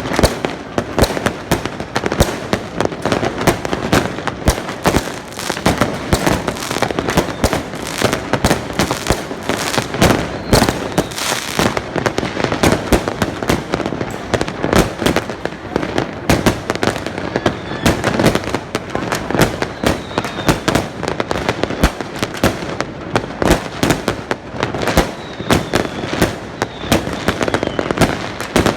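Fireworks going off without a break: many overlapping bangs and crackles, dense and continuous.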